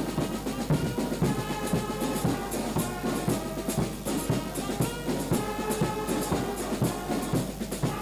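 Brass band music with drums: held brass chords over a quick, steady drum beat.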